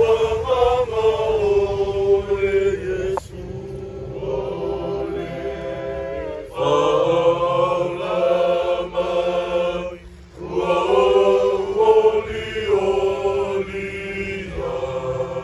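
A group of voices singing a slow hymn in long held notes, phrase after phrase, with short breaks between phrases.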